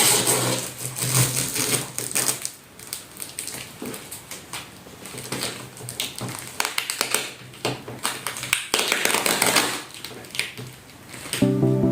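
Cardboard and plastic packaging being handled during an unboxing: an irregular run of taps and clicks, with bursts of rustling near the start and again about nine seconds in. Music comes in near the end.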